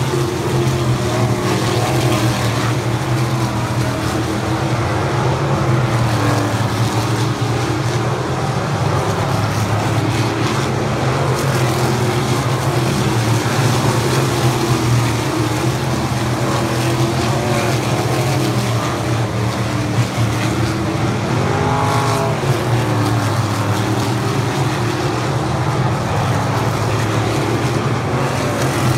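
A field of winged sprint cars racing on a dirt oval, their methanol-burning V8 engines running hard in a continuous loud drone. The engine notes waver up and down as cars pass, most plainly about two-thirds of the way in.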